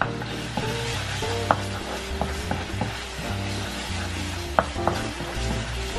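Blended spice paste with ground turmeric, coriander and pepper sizzling in a frying pan as a spatula stirs it, with several sharp taps of the spatula against the pan.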